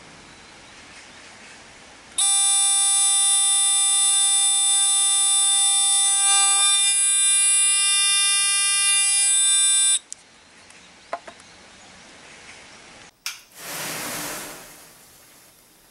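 Buzzer of a homemade 3 V transistor rain alarm sounding a loud, steady, buzzy tone for about eight seconds and then cutting off suddenly, set off by water wetting its wire-grid sensor. A short rushing whoosh of flame comes near the end.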